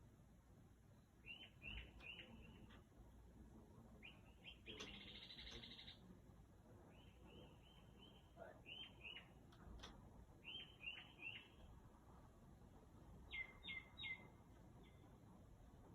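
Faint bird song: a varied string of phrases, each note repeated three or four times in quick downslurred groups, with a harsh buzzy phrase about five seconds in and sharper repeated notes near the end.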